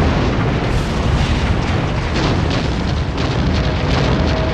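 Rapid gunfire and explosions overlapping in a dense, continuous din of battle.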